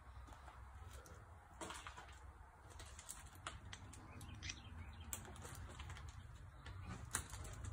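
Faint footsteps and rustling among clutter, with scattered light clicks and scrapes over a low steady rumble.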